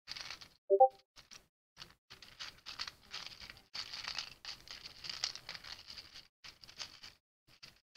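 Hands rummaging through loose Lego pieces in a clear plastic container: plastic on plastic in uneven bursts. About a second in, one very short pitched blip is the loudest sound.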